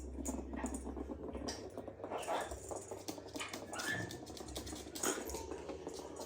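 Faint scratching and light clicking from a parrot handling a plastic ring-toss toy, with a brief high note about four seconds in.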